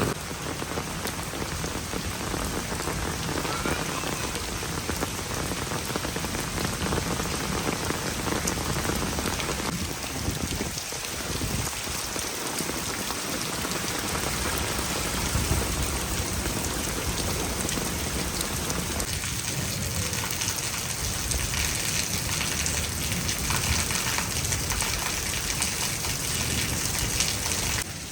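Heavy rain falling steadily, a dense even hiss of many drops.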